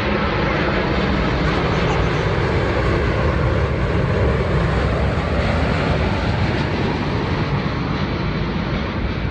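Jet airliner's engines running, a loud, steady roar, with a low hum that fades out about two seconds in.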